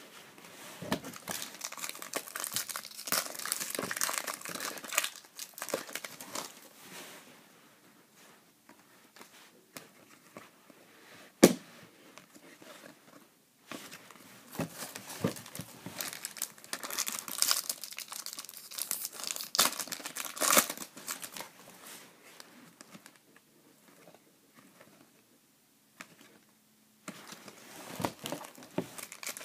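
Foil trading-card pack wrappers crinkling and tearing as packs are ripped open and handled, in bouts with quieter pauses between. A single sharp click about a third of the way through is the loudest sound.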